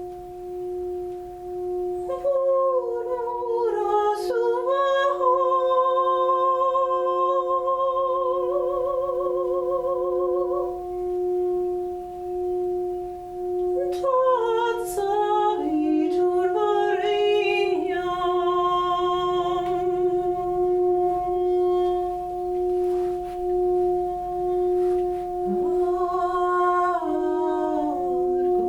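A voice sings long wordless notes with a slow vibrato, in three phrases, over the steady ringing of a singing bowl.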